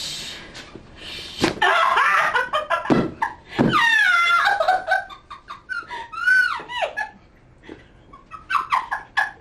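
A woman laughing and squealing during a chiropractic back adjustment, with a few sharp clicks or cracks about one and a half, three and three and a half seconds in.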